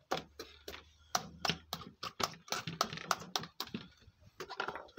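A knife point stabbing into whole eggplants and tomatoes to pierce their skins for fire-roasting: an irregular run of short sharp clicks and pops, about three or four a second, with a brief pause near the end.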